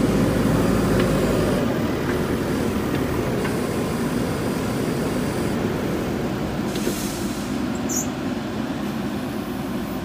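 JCB backhoe loader's diesel engine running steadily under load as it works the hydraulic backhoe arm. It is slightly louder in the first couple of seconds, then eases a little.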